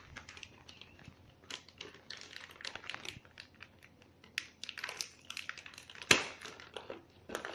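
Motherboard packaging being handled: crinkling of packing material with scattered light clicks and taps, and one sharper knock about six seconds in.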